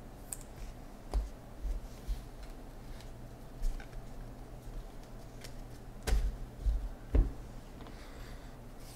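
A stack of football trading cards being handled and flipped through by hand: light card-on-card clicks and slides, with a few dull knocks, the loudest around six and seven seconds in.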